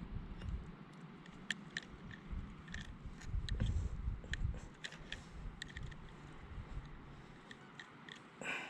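Irregular small clicks and crunches from close-by handling, over a low wind rumble on the microphone that swells about three and a half seconds in.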